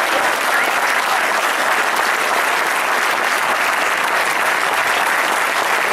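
Large audience applauding steadily, a dense unbroken clatter of many hands clapping.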